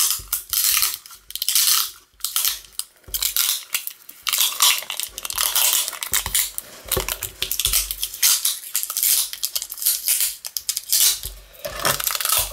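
Brown packing tape pulled off its roll and wrapped round a small cardboard tube, in an irregular run of ripping and crackling strokes with short pauses, mixed with low bumps from handling the roll on the table.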